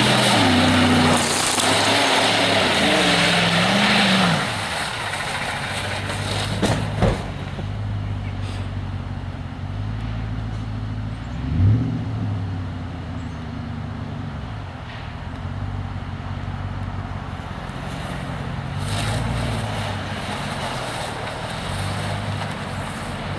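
Chevy pickup's 5.3-litre LS V8 revved hard, its pitch rising and falling over a loud rush of noise for the first four seconds, then running on more steadily with another brief rev about halfway through.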